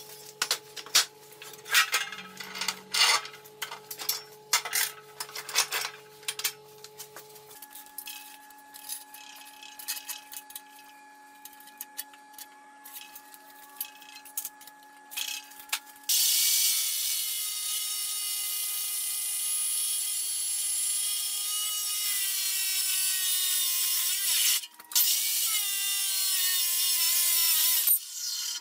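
Scattered clicks and knocks of handling at the saw. Then, about halfway through, a Chicago Electric 14-inch abrasive cut-off saw starts suddenly and grinds through steel stock for about twelve seconds. Its tone falls in pitch over the last several seconds, and it stops near the end.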